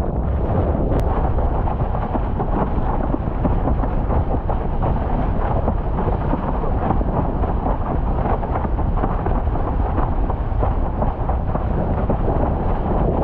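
Heavy wind buffeting the microphone, with the rush of water under a windsurf board sailing at speed: a loud, steady, deep rumble with no breaks.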